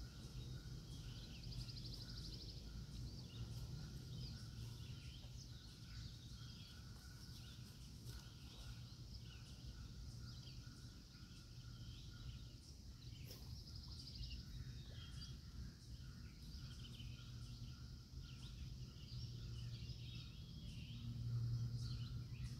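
Outdoor birdsong: many short high chirps with a couple of brief trills, over a steady low rumble.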